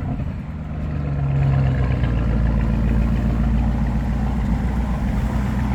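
2025 Audi SQ7's 4.0-litre twin-turbo V8 idling steadily, heard through its quad exhaust.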